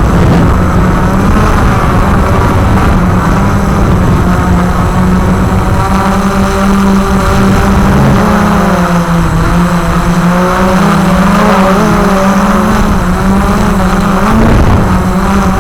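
Walker QR X350 Pro quadcopter's motors and propellers buzzing steadily in flight. About halfway through, the pitch starts wavering up and down as the rotors change speed.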